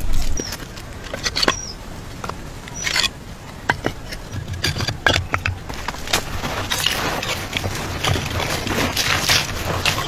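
Scattered light clicks and taps, then from about six and a half seconds repeated rustling scrapes of loose dry soil being swept by hand over clay tiles stacked in a pit.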